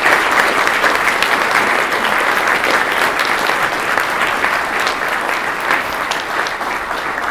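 Audience applauding: many hands clapping in a dense, even patter that eases off slightly toward the end.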